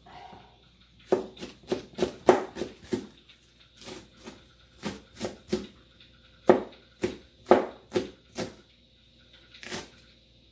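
Kitchen knife chopping green onions on a plastic cutting board: sharp chops in quick runs of several strokes, with short pauses between runs.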